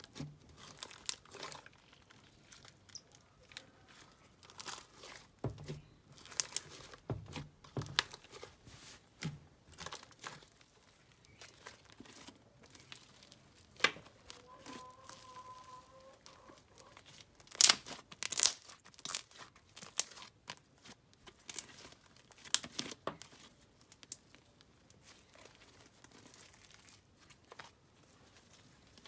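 Slime being worked by hand, with irregular sticky crackles and pops as it is pressed and stretched.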